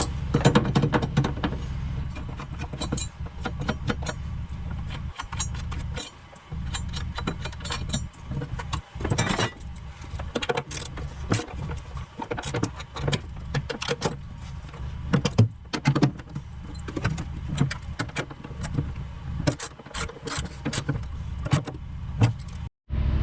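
Irregular metallic clicks, clinks and knocks of hand tools and steel parts as the battery tray bracket nuts are tightened and the tray is handled, over a steady low hum.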